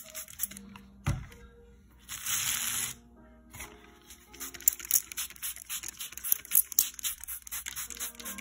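Dry sand being handled on a paper plate: a thump about a second in, a hiss of about a second, then a run of light crackling and pattering grains. Faint music plays underneath.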